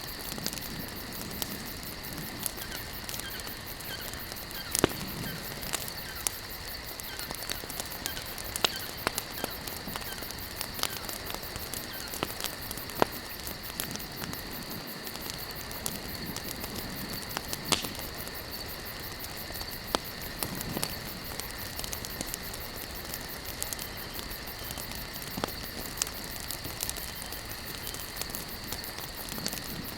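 Campfire of burning wood crackling, with irregular sharp pops over a steady hiss.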